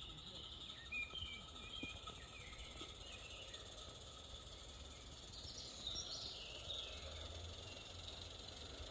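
Birds singing in woodland: scattered chirps and short warbled phrases, a cluster about a second in and another past the middle, over a low steady outdoor rumble.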